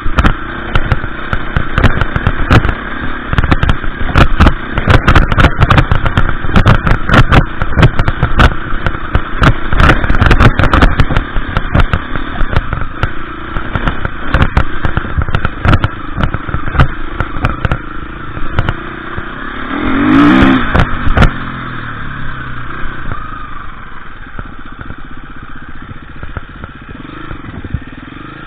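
KTM EXC 350 single-cylinder enduro motorcycle engine running and revving while ridden over rough ground, with many sharp knocks and clatter from the bike hitting stones. About 20 s in the engine revs up and falls away, then runs more quietly.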